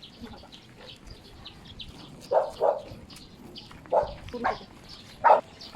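A dog barking: five short barks, coming in two pairs and then a single bark.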